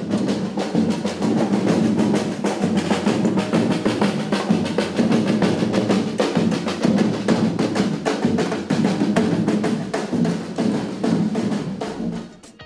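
Ensemble of drums playing a fast, dense samba rhythm, fading out near the end.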